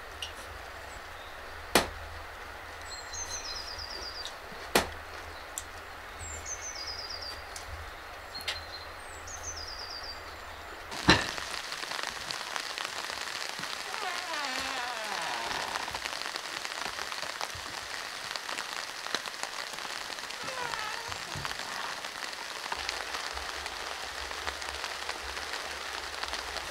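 Small birds chirping, a short falling call repeated every second or so, with two sharp knocks. About eleven seconds in a click is followed by a steady outdoor hiss.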